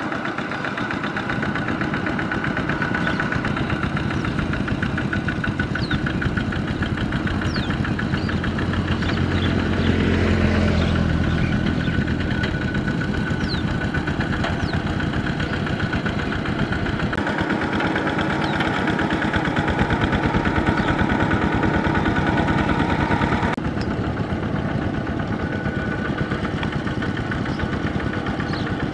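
Kubota RT120 walking tractor's single-cylinder diesel engine running steadily under load, a rapid even beat, as it drives its steel cage wheels through a flooded rice paddy.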